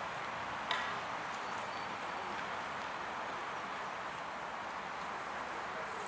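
Steady outdoor background hiss with one sharp click under a second in.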